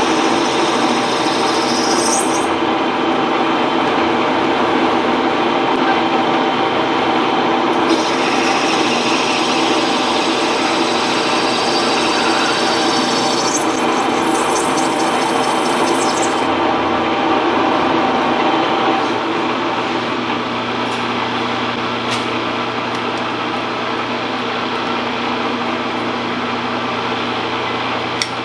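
Axelson engine lathe running under power while the tool turns a nylon workpiece: a steady gear whine and motor hum, with a higher hiss from the cut that comes and goes. About two-thirds of the way through the cutting noise eases and the machine runs on more quietly with a low hum, and a sharp click comes near the end.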